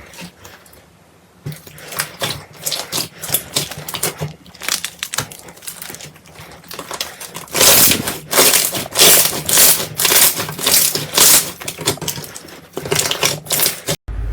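Slime being squeezed and pressed close to the microphone, giving rapid crackling and popping clicks; the pops get louder and denser from about halfway through for a few seconds.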